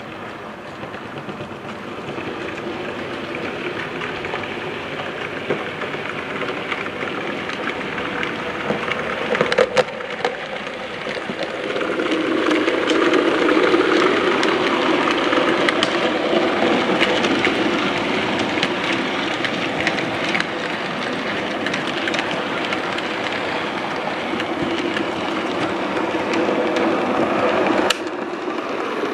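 Model railway coal train of hopper wagons rolling past: a steady rattle of small wheels clicking over the rail joints. It grows louder as the wagons pass close about twelve seconds in, then eases off and stops short near the end.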